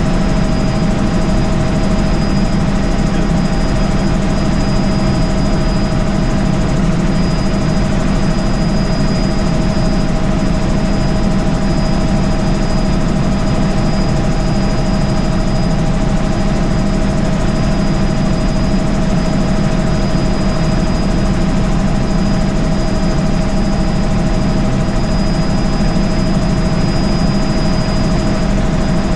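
Helicopter in flight heard from inside its cabin: loud, steady rotor and engine noise with a constant high whine over it.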